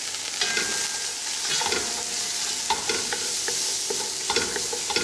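Chopped onion sizzling in hot fat in an aluminium pot, stirred with a wooden spoon that scrapes and taps against the pot many times. The onion has just gone in to start softening.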